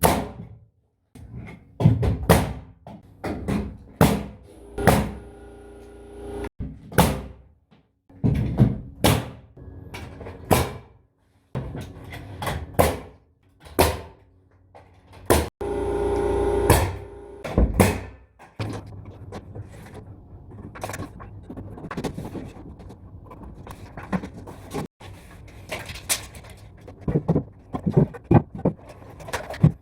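Carpentry work: a string of irregular sharp knocks and thumps on wood, closely spaced through the first half and lighter and more scattered later, with a longer ringing clatter about halfway through.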